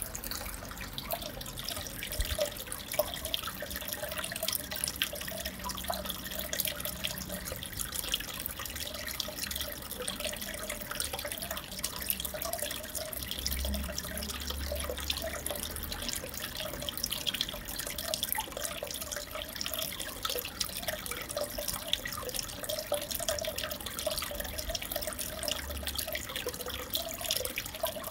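Aquarium water bubbling and trickling steadily, a continuous fine crackle of small splashes and drips.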